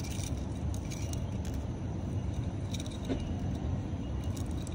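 Faint metallic clicks and scrapes of thin aluminium wire being pulled out through a ceramic bonsai pot's drainage holes, over a steady low rumble.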